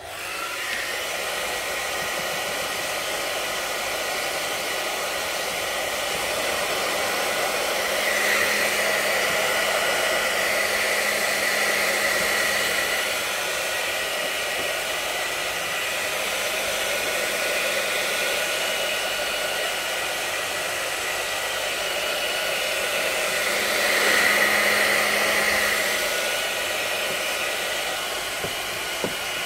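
Handheld hair dryer switched on and blowing steadily, drying wet decoupage glue under a napkin layer. It swells louder twice, around a third of the way in and again near the end.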